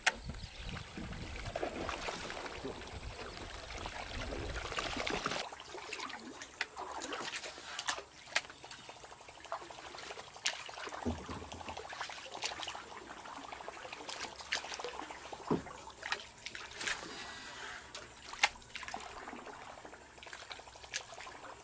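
Water trickling and splashing as a small wooden boat is paddled, with scattered sharp knocks of the paddle against the hull. A low rumble fills the first five seconds or so and cuts off abruptly.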